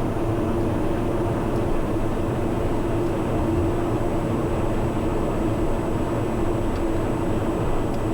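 Socata TBM 910's Pratt & Whitney PT6A turboprop running steadily at low power on the ground after landing, an even drone with a steady low hum, heard from inside the cockpit.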